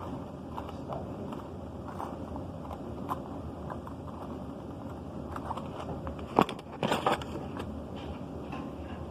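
Metal wrenches clinking and clicking as they are handled and tried on a bolt, with one sharp clank about six and a half seconds in and a short cluster of knocks just after.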